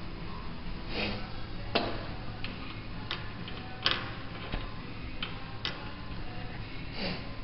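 Scrap metal parts clinking and knocking on a metal workbench top as they are handled and set down: about eight sharp separate clicks spread over several seconds, over a steady low hum.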